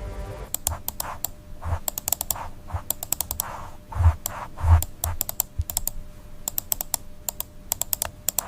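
Quick, irregular clicking typical of keys being typed on a keyboard, in short runs, with a couple of low thumps about four and four and a half seconds in.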